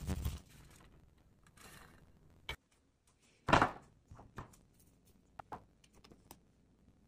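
Kitchen handling noises on a countertop: a sharp click about two and a half seconds in, then a louder brief thud about a second later, followed by a few faint taps.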